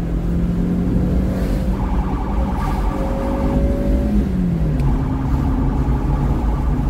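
Engine and road noise inside a moving car, with a police siren sounding in two stretches, from under two seconds in and again from about five seconds in.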